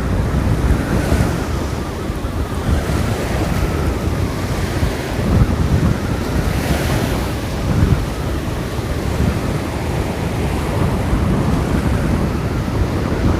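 Black Sea surf washing onto the beach, with one wave breaking in a louder hiss about seven seconds in, while strong wind buffets the microphone with a low rumble.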